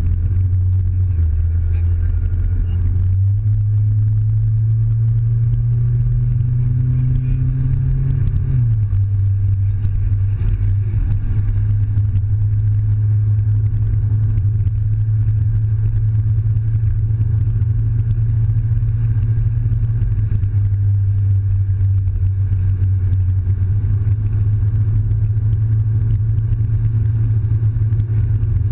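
Mazda6 engine and road noise heard from inside the cabin at highway speed. The engine note climbs for several seconds, then drops suddenly about eight seconds in at a gear change, and settles into a steady cruising drone.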